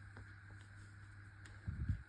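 Quiet room with a steady low hum and a few faint clicks, then a soft low thump near the end.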